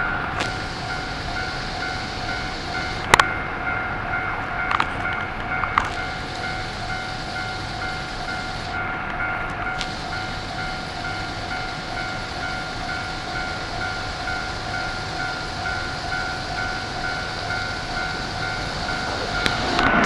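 Japanese railway level-crossing warning bell ringing in a steady repeating ding, with a few sharp clicks about three to six seconds in. Near the end the noise of a Keikyu 600-series train arriving at the crossing rises in over it.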